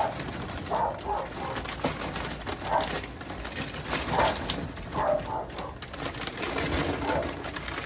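Neighbours' dogs barking in the distance: short, muffled barks come irregularly, about eight of them, over a steady background hiss.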